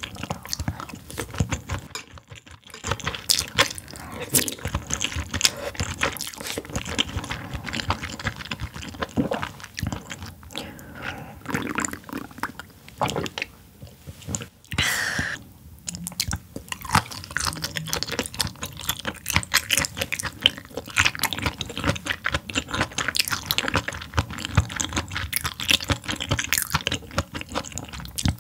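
Close-miked chewing of boiled sea anemone: irregular wet mouth sounds and clicks, with brief pauses.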